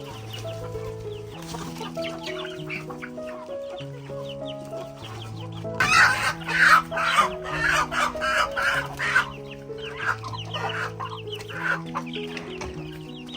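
Chickens clucking over background music with a steady bass line. The clucking is loudest and busiest from about six to nine seconds in.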